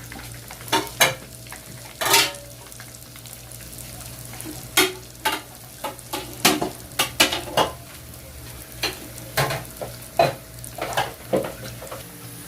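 Lumpia shanghai spring rolls frying in hot oil with a steady sizzle. A cooking utensil clicks and knocks against the pan many times as the rolls are turned and stirred.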